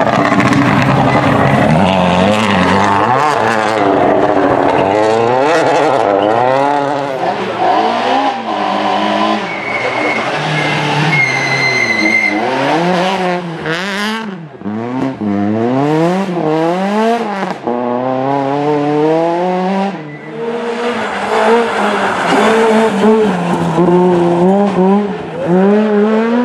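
Rally cars driven flat out one after another: first a Toyota Yaris WRC, then smaller rally cars including a Citroën C2. Each engine revs up hard and drops sharply again and again through gear changes and lifts, with some tyre squeal.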